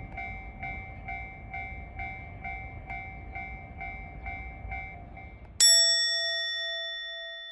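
Railway level-crossing warning bell ringing at about two strokes a second over a low rumble. Near the end, one loud bright chime rings out and slowly fades.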